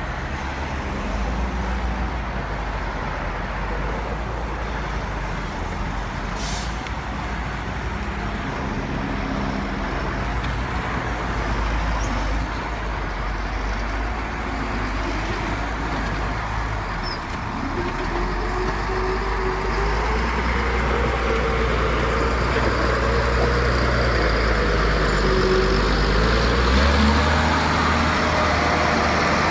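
Heavy diesel construction machinery running with a steady low engine rumble. A short hiss comes about six seconds in, and from about halfway a wavering whine joins as the sound grows louder toward the end.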